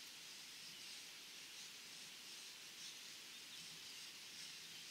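Faint scraping strokes of a knife blade shaving thin curls down a wooden stick to make a feather stick, over a steady outdoor hiss.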